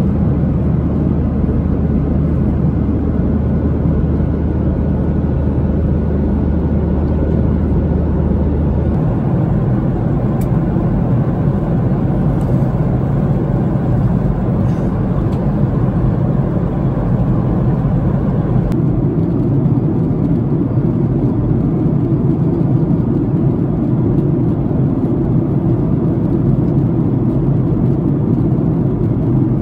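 Steady in-flight cabin noise of a Boeing 737-800 heard from an economy seat: an even rush of airflow and engine noise. A low hum in it stops about nine seconds in.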